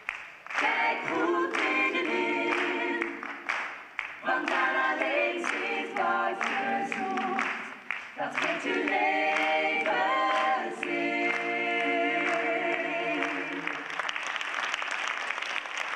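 Several voices singing a finale song together in phrases with short breaks between them. The singing ends about fourteen seconds in and the audience applauds.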